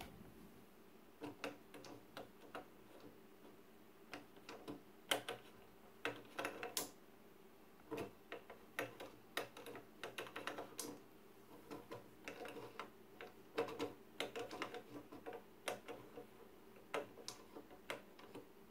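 Irregular light clicks and ticks from the right Z-axis lead screw and carriage of a Creality CR-10S Pro 3D printer being worked, an axis that tends to stick, over a faint steady hum.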